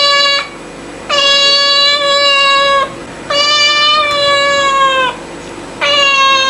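Cat meowing in long, drawn-out meows, each held on one steady pitch for nearly two seconds and separated by short pauses. One meow ends just after the start, two full meows follow, and another begins near the end.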